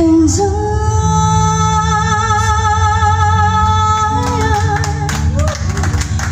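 A woman singing one long note with vibrato, held for about four seconds, then a few shorter sung phrases, over plucked acoustic guitar accompaniment.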